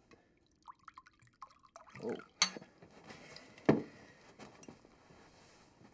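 Liquor poured from a bottle into a small ceramic cup, a gurgling pour that rises in pitch as the cup fills, followed by a sharp clink and a dull knock as the bottle and cup are handled.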